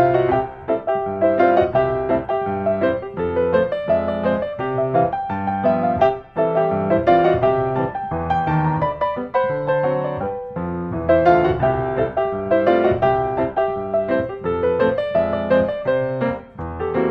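Background instrumental piano music, a steady run of notes and chords.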